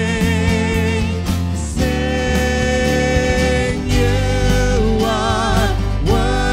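A man and a woman singing a worship song together over strummed acoustic guitar, holding long notes with vibrato.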